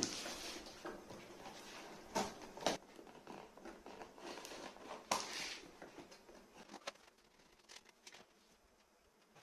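Cardboard shipping box being handled, its packing tape cut with scissors and the flaps opened: a string of knocks, scrapes and rustles, quieter in the last few seconds.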